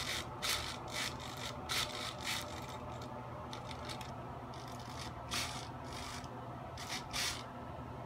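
Irregular short rubbing and scraping noises, about ten brief strokes, bunched near the start and again in the second half, over a faint steady low hum.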